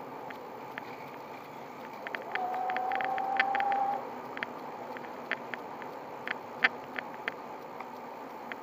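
Rented electric bicycle's 250 W hub motor humming and buzzing as it rides, with scattered clicks and rattles from the bike on the road. About two and a half seconds in, a louder steady whine comes in, rises slightly, and stops after about a second and a half.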